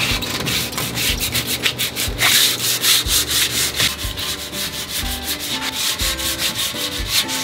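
Hand sanding block with sandpaper scraping in rapid back-and-forth strokes, several a second, over the rail of a painted metal gate, taking off loose, peeling paint.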